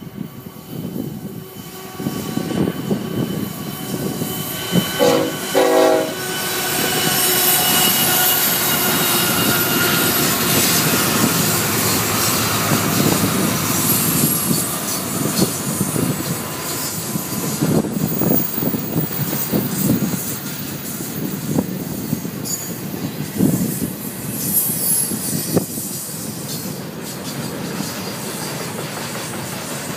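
BNSF freight train led by GE ES44C4 diesel-electric 6780 passing close by. Its horn sounds two short blasts about five seconds in. Then a long string of intermodal flatcars loaded with trailers rolls past, with a steady rumble, wheels clacking over the rail joints and high-pitched wheel squeal.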